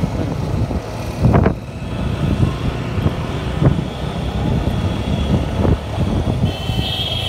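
Motorcycle running at low road speed, with its engine rumble and wind noise on the rider's microphone, broken by a few short knocks, the loudest about a second in. A thin high steady tone joins near the end.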